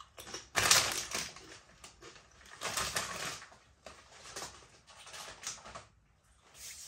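Crunching of a kettle-cooked sea salt potato crisp being chewed, in irregular crackly bursts, the loudest about half a second in, with the crisp packet rustling as a hand goes into it.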